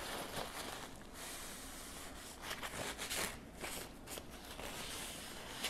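A dry napkin rubbed along a steel knife blade, a few faint scuffing wipe strokes, clearing oily abrasive sludge off the blade between sharpening stones.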